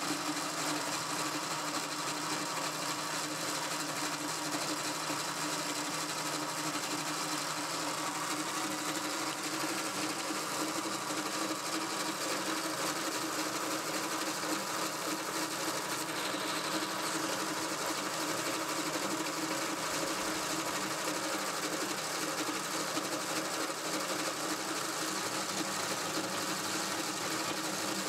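Bobcat M611 skid-steer's belt-and-pulley transmission and chain drive, turned by an electric motor, spinning steadily: a continuous mechanical whir with a constant hum.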